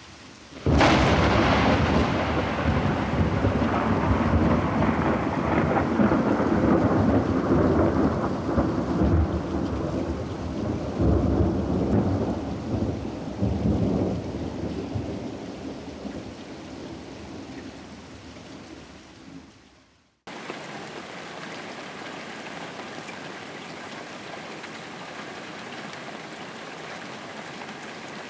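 Thunderstorm: a sudden crack of thunder about a second in, then a long rolling rumble over rain that fades away over the next twenty seconds. It cuts off abruptly into steady, quieter rainfall.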